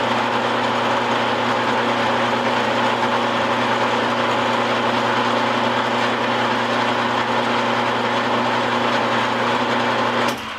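Milling machine running steadily with an even hum while it makes a cut in a trunnion, then switched off about ten seconds in, the sound stopping abruptly.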